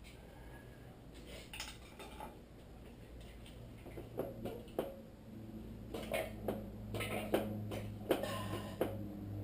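Metal clinks and knocks from engine parts and tools being worked on a stripped Nissan QR25 block while the crankshaft is being freed. A few sharp clinks at first, growing busier about halfway through, over a low steady hum.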